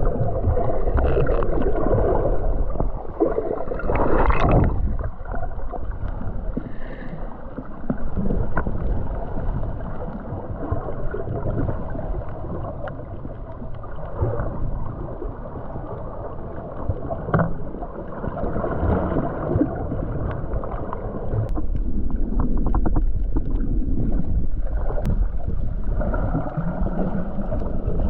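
Muffled underwater sound picked up by a camera held below the surface while snorkeling: steady sloshing and gurgling water with little high end, swelling briefly a few times.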